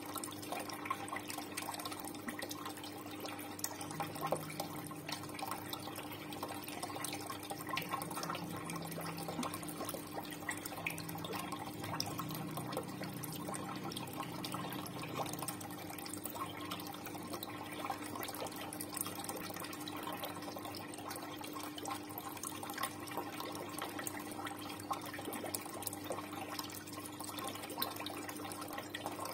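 Water running and trickling into a fish pond, a steady splashing with small drips, over a steady low hum that swells for a while in the first half.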